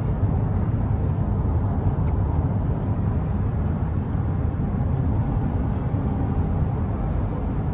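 Steady road and tyre noise heard from inside a car's cabin while driving at freeway speed, a low rumble with no change.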